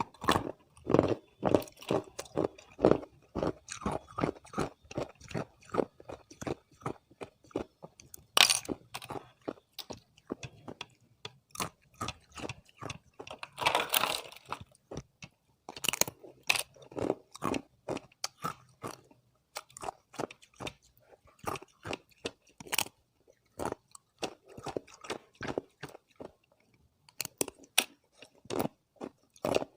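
Close-up crunching of hard ice being bitten and chewed: repeated sharp crunches in irregular runs, with a few louder bites.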